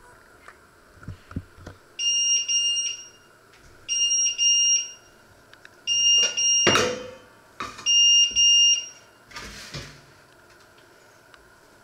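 Electronic cooker beeper sounding four pairs of short high beeps, about two seconds apart. Between them a steel pot scrapes on the hob, loudest about seven seconds in, and near ten seconds the baking tray slides into the oven.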